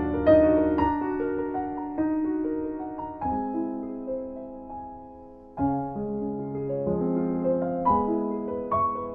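Slow, gentle piano music with held notes and chords changing about once a second, fading away about five seconds in before a new chord begins.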